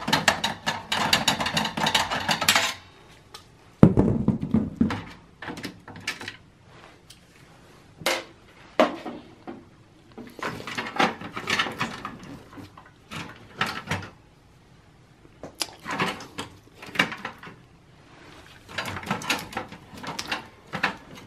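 Screwdriver backing a screw out of a Dell Precision T5500's steel chassis, with rapid clicking for the first couple of seconds. Then a loud knock about four seconds in, followed by scattered metallic clicks and rattles of parts being handled inside the computer case.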